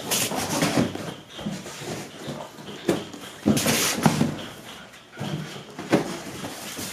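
Cardboard boxes of sky-shot fireworks being slid and set down into a cardboard carton: cardboard scraping on cardboard, with several dull knocks as boxes land.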